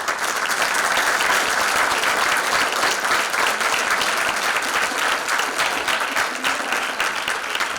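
Audience applauding, a dense crackle of many hands clapping that starts just before and holds steady throughout.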